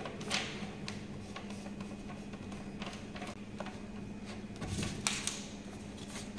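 A sheet of paper being handled and flexed: scattered soft rustles and light taps, busiest about five seconds in, over a steady low hum.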